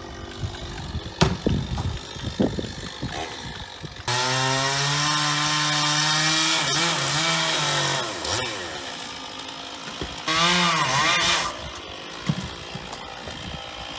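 A chainsaw cutting oak wood. After a few knocks in the first seconds, it opens up to full speed about four seconds in and cuts for about four seconds, its pitch wavering as it loads in the wood. A second short burst comes about ten seconds in.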